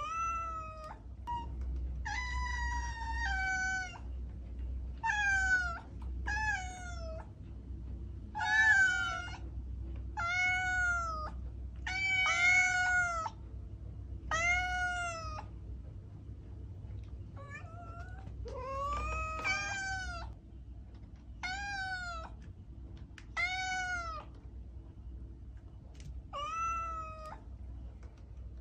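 A cat meowing over and over, about fourteen high-pitched meows, each under a second and rising then falling in pitch, with short gaps between them and a longer pause around the middle.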